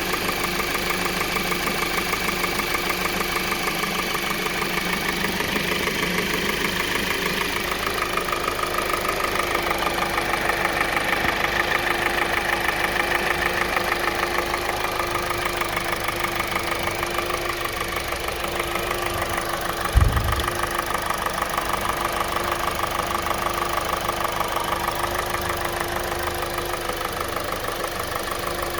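2020 Kia Soul's 2.0-litre four-cylinder engine idling with a steady, rapid knock of piston slap, which the owner puts down to faulty piston rings. A single low thump comes about two-thirds of the way through.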